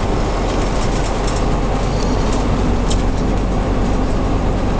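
Underfloor Gardner 5HLW five-cylinder diesel of a 1959 Bristol MW5G coach running steadily under way, heard from inside the saloon behind the driver, with road noise and a few light clicks.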